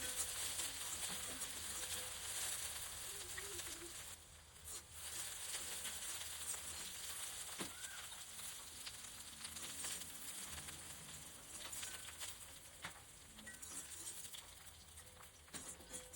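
Okra (bhindi) frying in hot oil in a pan, a steady sizzle with fine crackles. The sizzle dips briefly about four seconds in.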